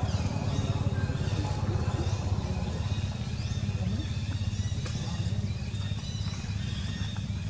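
A steady low motor rumble with a fine even pulse, with short high chirping calls that slide downward every second or so over it.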